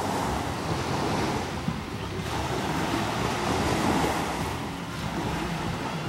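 Gentle sea surf washing ashore, swelling and easing, with wind rumbling on the microphone.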